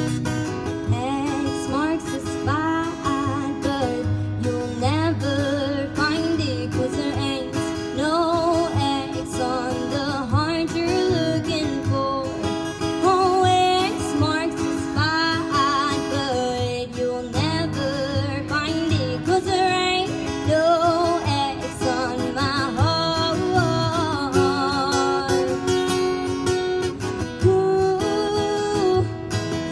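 Solo country song performed live: a young woman singing over her own strummed acoustic guitar, her held notes wavering with vibrato.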